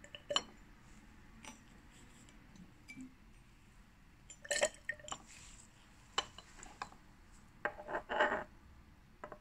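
Glass test tubes clinking lightly against a metal test-tube rack: a few scattered taps, a short run of clinks about four and a half seconds in, and the loudest clinks near the end as a tube is lifted out of the rack.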